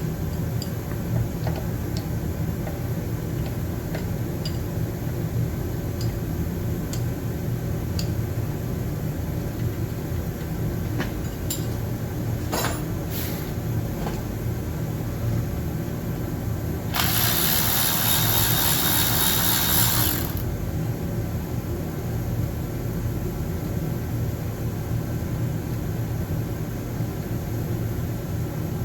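Light clicks and ticks of hand tools working the fuel-rail screws on an engine, over a steady low workshop hum. Past the middle comes a loud hissing burst of about three seconds.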